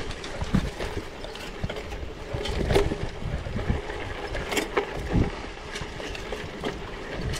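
Gravel bike on 700x38c tyres riding over rough, rocky ground: a continuous crunch of tyres on stones with irregular knocks and rattles from the bike as it hits rocks.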